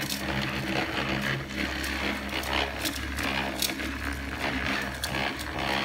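Small electric motor of a DIY toy cleaning robot running with a steady hum. Scattered plastic clicks and rattles sound as the robot is pushed about on a wooden tabletop.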